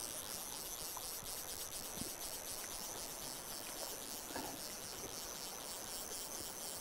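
Steady rush of a fast river, with a fine high-pitched chirring over it and a couple of faint knocks.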